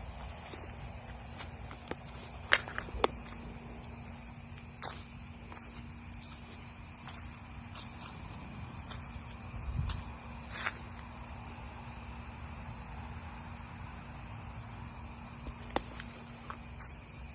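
Steady high-pitched chorus of crickets, with slow footsteps and a few sharp clicks or snaps. The loudest snaps come about two and a half and three seconds in.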